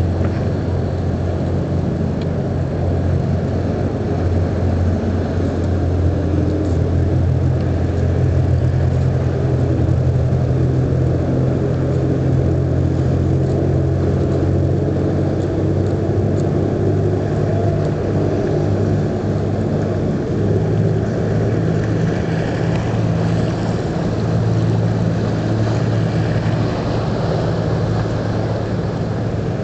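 An engine running steadily with a deep hum, its pitch shifting slightly about halfway through, over a wash of wind and water noise.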